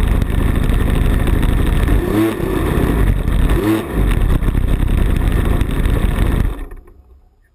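The plane's 40cc two-stroke gas engine idling close to the onboard camera, dipping briefly twice, then cutting out about six and a half seconds in as the engine is shut off.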